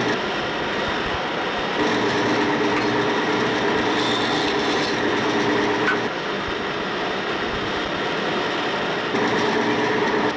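Band saw running and cutting a persimmon wood block: a steady mechanical whirr with a hum that grows louder for a few seconds at a time.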